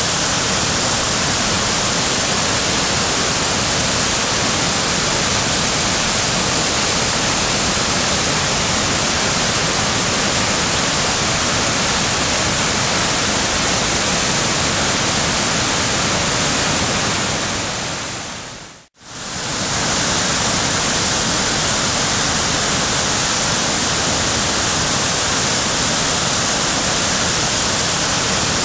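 Steady rush of a waterfall's falling water, fading out to silence about two-thirds of the way through and fading straight back in.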